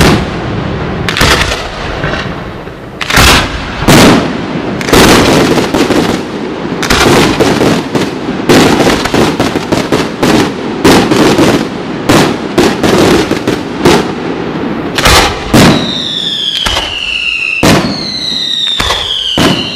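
Aerial fireworks display: a rapid series of shell bursts going off as sharp bangs, with crackling between them. In the last few seconds, several whistles falling in pitch sound over the bursts.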